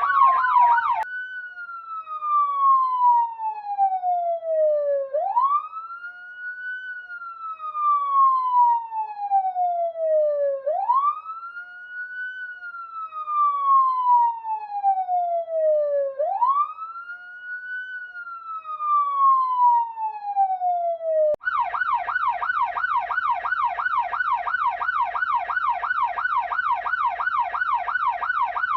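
Police car siren sounding in a slow wail that sweeps quickly up and then falls slowly, repeating about every five and a half seconds. About three quarters of the way through it switches abruptly to a fast yelp of about three cycles a second; a moment of the same fast yelp ends it at the start.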